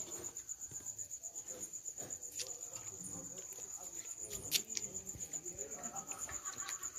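A cricket's steady, pulsing high trill, with soft bubbling from rosogolla balls simmering in sugar syrup beneath it. A sharp metal clack comes about four and a half seconds in as a ladle goes into the aluminium pan.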